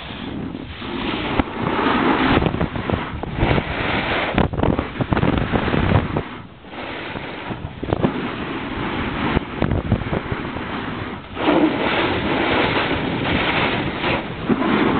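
Wind rushing over a helmet-mounted camera's microphone as a skier descends at speed: a loud rushing noise that rises and falls, dipping briefly about six and a half seconds in.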